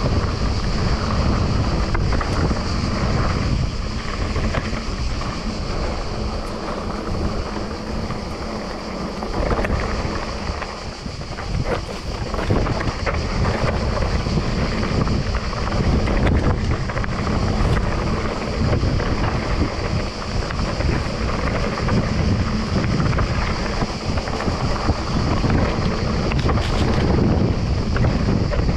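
Wind buffeting the microphone during a mountain-bike ride on a dirt singletrack, with the rumble of the Cube Reaction's tyres on the trail and a few brief knocks and rattles from the bike over bumps.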